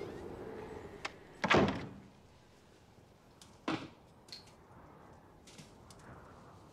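A door slamming shut about a second and a half in, followed about two seconds later by a second, sharper knock and a few faint clicks.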